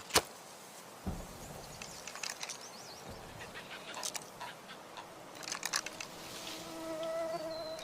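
Lee-Enfield No.4 Mk I rifle being handled: a sharp metallic click near the start, then scattered clicks and rattles. A steady hum joins about six seconds in.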